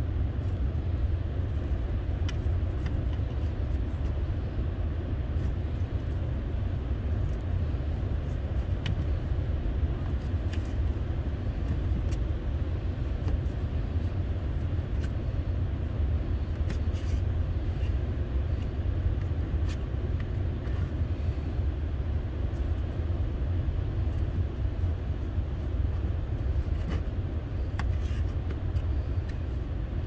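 Steady low rumble with faint scattered clicks of a knife slicing tomatoes against a plate.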